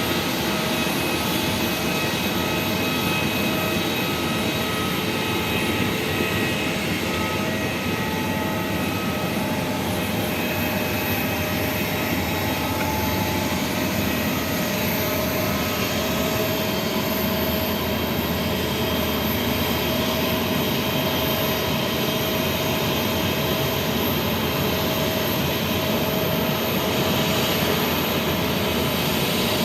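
Jet airliner engines running at taxi idle: a steady rush of noise with thin, steady whining tones over it.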